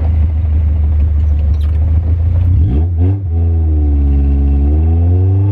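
Car engine running, its note climbing about three seconds in and then sagging and rising again as the revs change.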